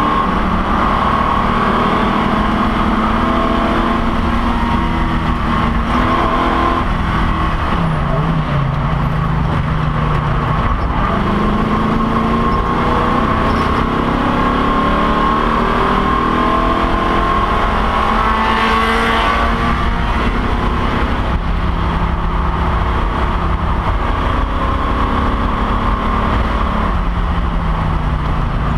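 Race car engine heard from inside the stripped, caged cockpit at speed, loud and steady, its pitch climbing through the gears and dropping at each shift or lift, over heavy road and wind noise.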